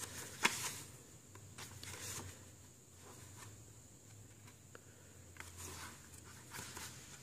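Pages of a paperback guidebook being turned and handled: faint, scattered paper rustles and light finger taps over a faint steady low hum.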